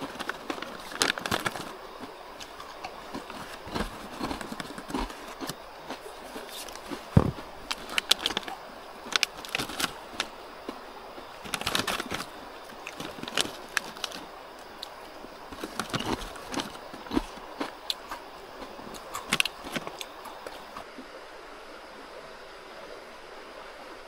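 A crinkly plastic snack packet being handled, in irregular crackling rustles that stop a few seconds before the end. A mountain stream runs steadily underneath.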